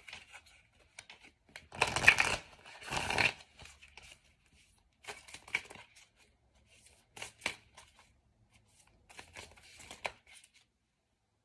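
Oracle card deck being shuffled by hand: two louder bursts of card noise about two and three seconds in, then shorter, softer shuffles every couple of seconds.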